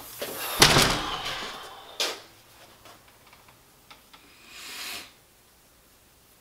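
A room door opening, then shutting with a sharp click about two seconds in, followed by a short rustle.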